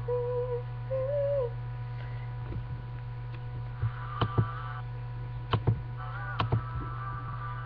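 The last note of a song, a single pitched line stepping upward, fades out about a second and a half in over a steady low electrical hum. After that the hum goes on under a few sharp clicks and knocks, several of them in quick pairs.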